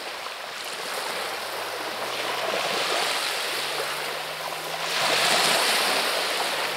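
Small sea waves washing onto a pebble beach: a steady hiss of surf that swells louder as a wave comes in about five seconds in.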